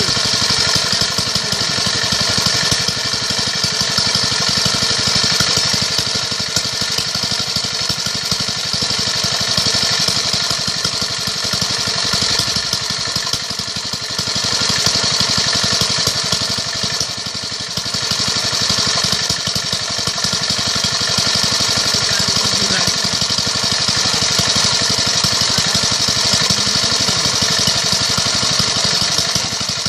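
A small engine running steadily at an even speed, with a hiss above it.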